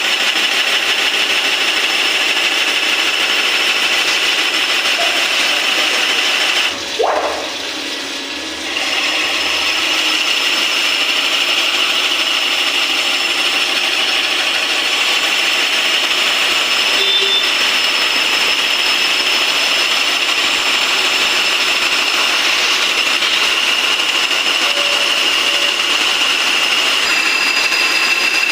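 CNC machine cutting an SS316 stainless-steel camlock fitting: a loud, steady machining noise with a high whine. About seven seconds in it drops for a couple of seconds, with a short rising tone, then picks up again.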